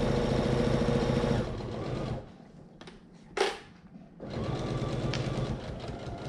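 Electric sewing machine stitching a zipper seam through vegan leather, running fast, then slowing and stopping about two seconds in. A short sharp knock comes in the pause, and the machine starts stitching again about four seconds in.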